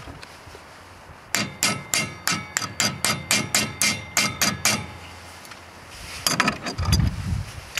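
Hammer tapping a steel dust cap back onto a trailer hub's bearing housing: about a dozen quick metallic strikes, three or four a second, each ringing briefly, as the cap is seated after the bearing preload has been adjusted. Near the end, a short burst of clattering with a low rumble.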